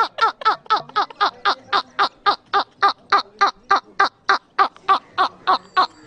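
A man laughing hard in a high, rapid, regular rhythm of short falling 'heh' pulses, about four a second, without a break.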